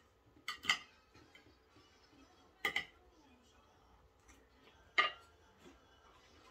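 Fork and knife clinking against a plate while eating: a few sharp clinks, two close together near the start, one near the middle and one a couple of seconds later.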